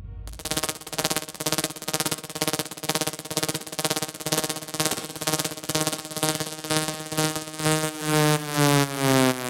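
Electronic techno music in a breakdown: a buzzy synthesizer pulsing rapidly with no kick drum, its pitch gliding downward over the last few seconds.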